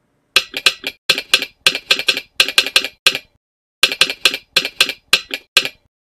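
Telegraph sounder clicking and clacking out the words "Morse code" in American Morse (railroad code): its solenoid-driven metal arm strikes one stop when energised and the other when released. A quick run of sharp metallic clicks, a pause of about half a second between the two words, then a second run.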